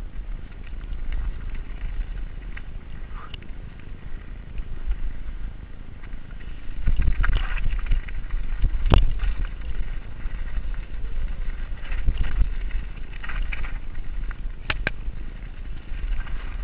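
Giant Reign mountain bike descending a rough dirt singletrack: wind rumbling over the GoPro microphone along with tyre and trail noise, and the bike rattling and clicking over roots and rocks. The sharpest knock comes about nine seconds in, with a quick pair of clicks near the end.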